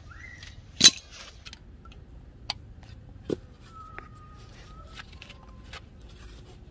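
Steel drum brake shoes, return springs and adjuster knocking and clinking as the assembly is handled. One sharp knock comes about a second in, and a few lighter clicks follow.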